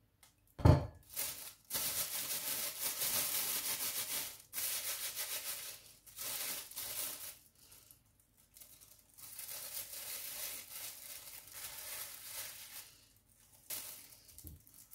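Thin plastic bag crinkling and rustling as it is handled, in several long stretches with short pauses between. A sharp knock comes about half a second in and is the loudest sound.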